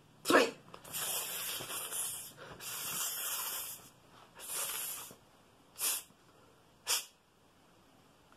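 A man hissing like a snake: three long hisses, then two short ones.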